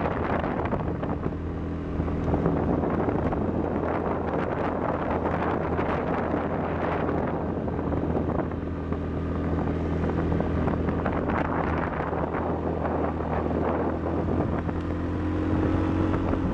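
ATV engine running steadily at cruising speed on a dirt road, with wind buffeting the microphone.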